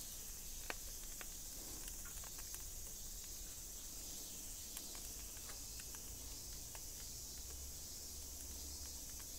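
Chicken yakitori skewers grilling over a charcoal fire, with scattered small crackles and pops over a faint steady high-pitched hiss.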